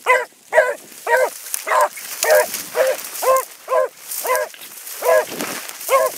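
Hound giving tongue while running a rabbit track: a steady run of short, pitched bawls, about two a second, with one brief pause partway through.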